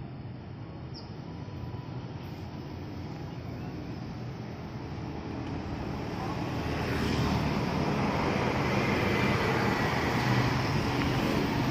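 Scania K360IB tour bus approaching and passing on a wet road: engine running and tyres hissing on the wet asphalt, growing steadily louder over the second half as it comes close.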